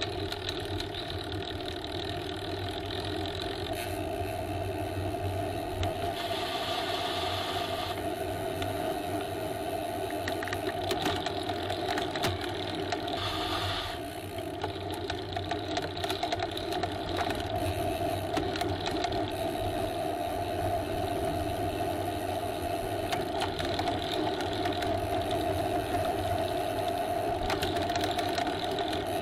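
Bicycle being ridden: a steady mechanical whir from the drivetrain and tyres, with a constant hum underneath.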